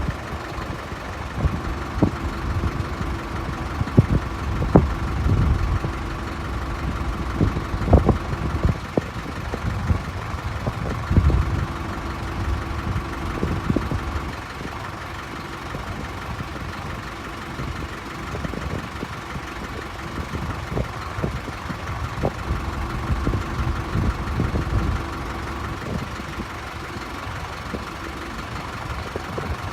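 Airbus A380's jet engines running at low power, a steady whine of several held tones over a low rumble. Irregular low thumps break in, mostly in the first half.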